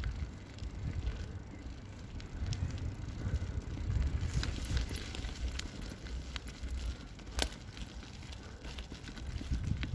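Wheels rolling over loose gravel and rubble, crackling and crunching over a low, uneven rumble. There is one sharp knock about seven seconds in.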